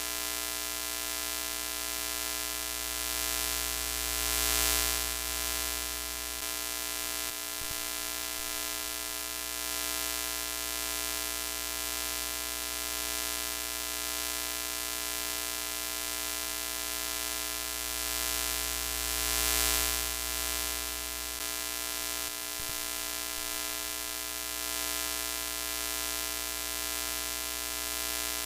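Broken-television sound effect: a steady hiss of static over a buzzing hum, the hiss swelling briefly about four and a half seconds in and again about twenty seconds in.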